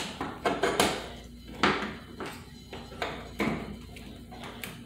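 Hard plastic clicks and knocks from a plastic toilet paper dispenser's cover and lock as it is pushed down on to force the latch, with a wedged pair of plastic stoppers standing in for the key. There are about half a dozen sharp knocks, unevenly spaced.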